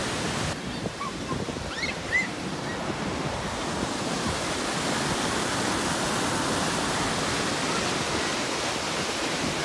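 Whitewater of the Merced River rushing steadily through a narrow granite chute at the brink of Nevada Fall.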